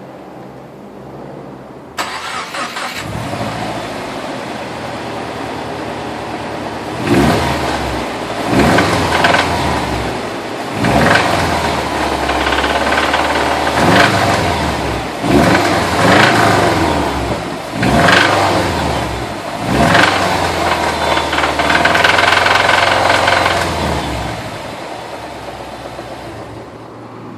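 2012 Subaru WRX's turbocharged 2.5-litre flat-four starting about two seconds in, idling, then revved in a string of short blips that rise and fall. It runs with a knock that the owner believes is a thrown rod.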